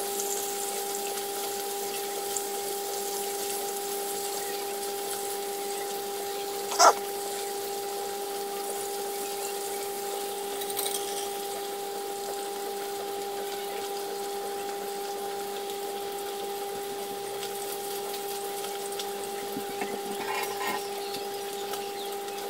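Flour-dusted needlefish sizzling steadily in hot frying oil in a pan, over a constant hum. A single sharp tap, the loudest sound, comes about seven seconds in.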